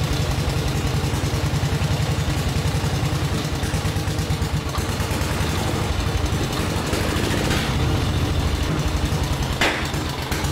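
1912 Harley-Davidson X8A single-cylinder engine running steadily just after start-up, a rapid, even beat of firing pulses. A single sharp click sounds near the end.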